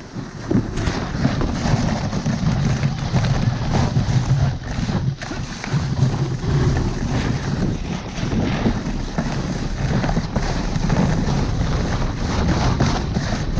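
Sled runners rumbling and scraping over packed snow at speed, with wind buffeting the microphone and a few knocks as the sled hits bumps.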